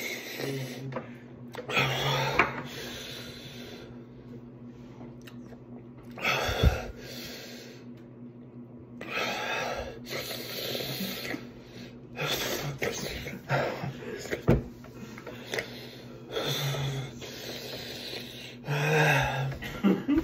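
A man breathing hard through his open mouth, blowing out sharp breaths every second or two, from the burn of a Paqui One Chip Challenge chili chip.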